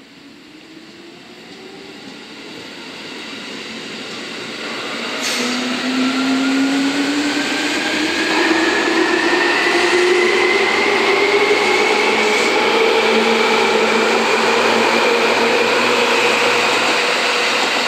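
Seibu 2000-series electric train pulling away from a station platform and accelerating past. A whine from its motors climbs steadily in pitch over the rumble of the wheels on the rails. The sound grows louder for about six seconds as the cars come alongside, then stays loud.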